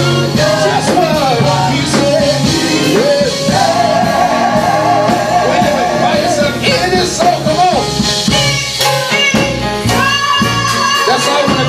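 Live gospel praise band playing with a singer's voice over it; about four seconds in the voice holds a long note with heavy vibrato.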